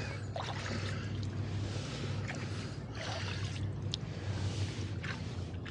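Oars working a rowboat through lake water: swishes and drips of water every second or two, with a few light knocks, over a steady low hum.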